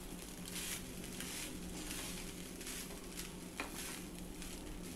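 Wooden spatula stirring and tossing cooked rice in a nonstick pan: soft, faint scraping strokes, one or two a second, over a steady low hum.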